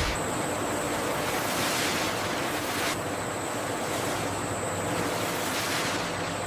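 Steady rushing, surf-like noise that swells and ebbs every couple of seconds, with a faint high thin whine that comes and goes.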